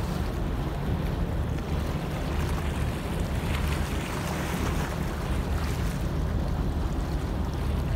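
Wind buffeting the microphone over a steady low rumble and the wash of choppy harbour water, as heard from aboard a boat.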